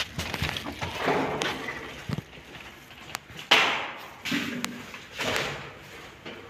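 Thumps and scrapes of a glass shop door being pushed open and a plastic chair being moved on the floor, with a louder knock a little after three seconds in.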